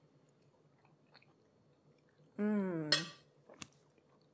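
A woman quietly chewing a mouthful of soft baked stuffed zucchini, then humming a single falling "mmm" of enjoyment about two and a half seconds in. A couple of light clicks follow.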